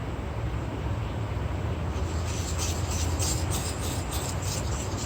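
A steel plane iron stroked back and forth on a sharpening stone, starting about two seconds in at about three short scraping strokes a second, over a steady low hum. The iron is being honed on its freshly hollow-ground bevel.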